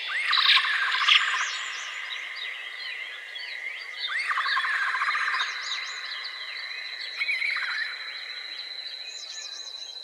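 A chorus of wild birds chirping and singing, with many short high chirps. A lower trilled call sounds three times, about three to four seconds apart. A steady high drone runs through the second half.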